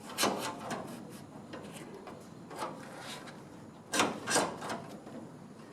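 A few scattered knocks and rubbing sounds, the loudest a pair of knocks about four seconds in.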